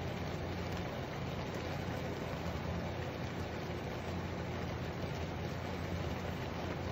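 Water simmering with instant yakisoba noodles in a frying pan on an electric cooktop: a steady hiss over a low, even hum.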